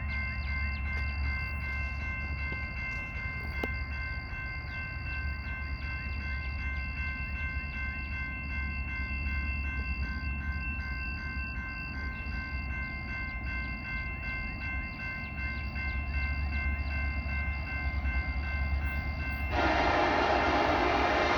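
Approaching diesel freight train: a steady chord of high ringing tones over a low locomotive rumble. Near the end a sudden loud rush sets in as the lead locomotives, an SD70M-2 and an SD75I, reach the microphone.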